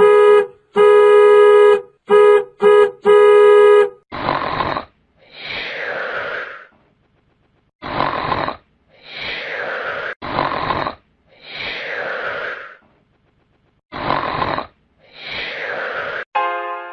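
Stock sound-effect clips: a buzzy, horn-like tone in six blasts of varying length, then a breathy two-part sound, a short burst and a longer falling one, repeated four times about every four seconds.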